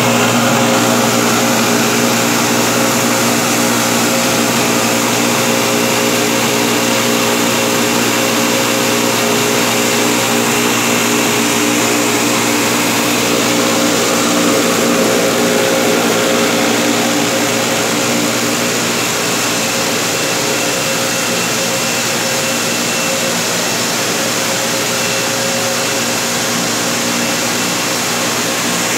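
Plastic granule making plant running: the extruder line's motors, gearbox and blowers give a loud, steady industrial hum with several steady tones in it, a little quieter from about two-thirds of the way through.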